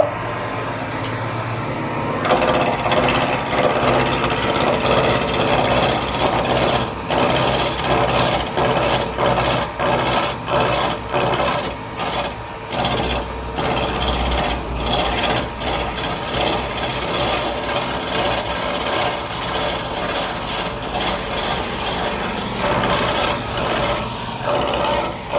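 Electric wood lathe spinning a long wooden spindle blank with its motor humming. From about two seconds in, a hand-held turning chisel cuts into the wood, making a continuous rough scraping that wavers in loudness as the tool moves along the work.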